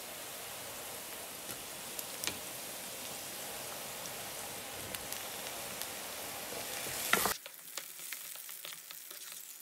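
Onions and tomato pieces sizzling in oil in a stone-coated nonstick frying pan. About seven seconds in there is a brief loud burst, after which the sizzle is quieter and a wooden spoon stirs and scrapes against the pan with small clicks.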